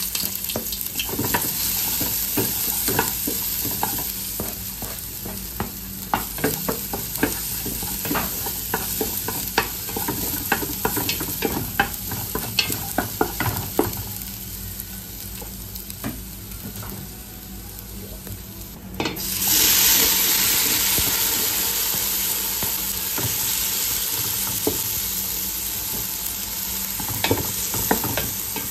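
Minced garlic sizzling in hot oil in an aluminium pot, with a wooden spatula stirring and scraping and tapping against the pot in many quick clicks. About two-thirds of the way through, the sizzle suddenly gets louder as chopped kimchi goes into the pot.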